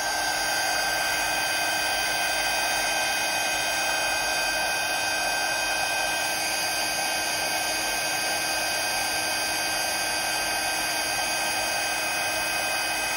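Craft heat gun running steadily, a constant blowing rush with a thin steady whine.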